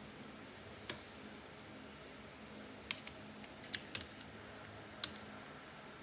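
Short, sharp clicks and taps of hard parts being handled and fitted together while assembling a laptop cooling-fan bracket: about seven in all, one about a second in, a cluster around three to four seconds, and the loudest about five seconds in. A faint steady low hum runs underneath.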